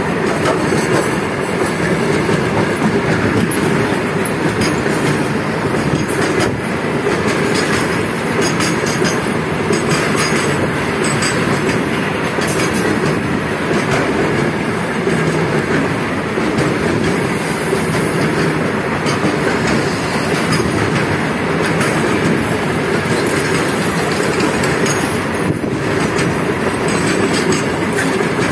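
Freight train of covered goods wagons rolling past close by: a steady loud rumble and rattle of steel wheels on the track, with a few faint knocks.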